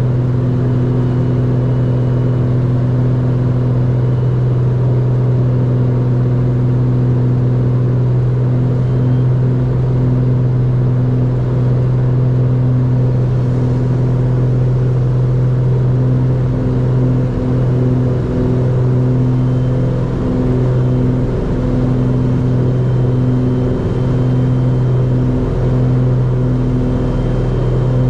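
Twin engines and propellers of a Beechcraft B60 Duke, two turbocharged six-cylinder Lycoming piston engines, droning steadily in flight. From about a third of the way in the drone takes on a slow, uneven pulsing.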